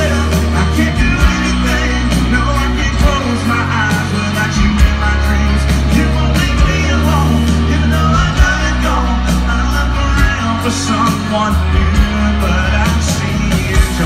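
Live band music with a heavy steady bass, drums and singing, heard loud.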